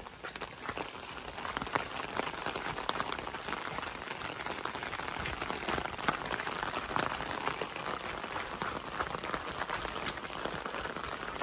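Steady rain, a dense patter of drops with fine ticks throughout.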